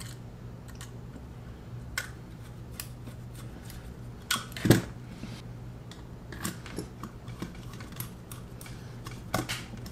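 Small clicks and taps of a precision screwdriver driving screws into the plastic retrofit back of a TBS Crossfire Micro TX V2 module, with a louder knock about halfway through. A steady low hum runs underneath.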